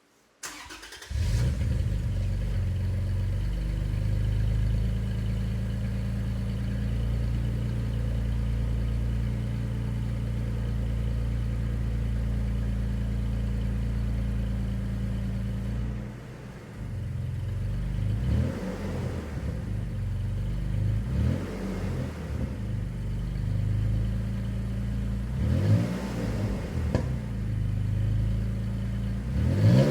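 2022 Toyota Tacoma's 3.5-litre V6 running through an MBRP 3-inch catback exhaust. It starts about a second in and idles steadily, then is revved four times in the second half, each rev rising and falling.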